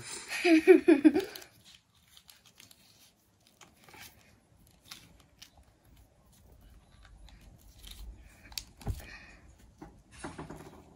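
Black rubberised Flex Tape being stretched and pressed over the cork of a glass bottle: faint sticky peeling, rustling and small ticks, with a soft knock about nine seconds in. A short burst of a person's voice at the start is the loudest thing.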